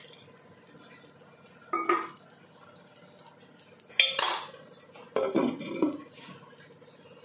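Kitchenware knocking three times: short ringing clatters about two and four seconds in, the one at four the loudest, then a cluster of knocks as a terracotta lid is set onto an earthenware cooking pot of raw peanuts.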